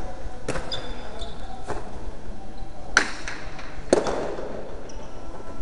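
Hard jai alai ball (pelota) cracking against the fronton court during a rally: four sharp impacts about a second apart, each ringing on in the large echoing hall, the loudest about three and four seconds in.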